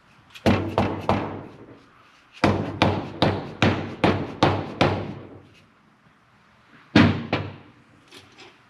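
Hammer blows, likely from a soft-faced hammer, knocking on the Can-Am Maverick 1000's cylinder to break it loose from the crankcase. There are three quick strikes, then a run of about eight evenly spaced strikes, and two more near the end, each ringing briefly.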